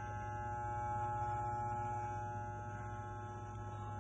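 Electric hair clippers running with a steady electric hum, cutting a short buzz cut.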